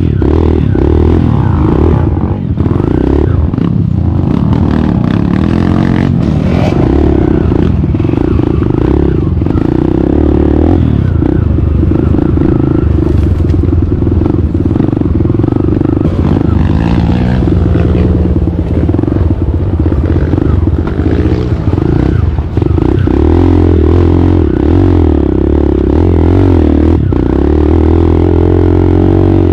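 Dirt bike engine with an open exhaust pipe, running and rising and falling in pitch as the bike rides over a rocky trail, with clattering and scraping over the engine.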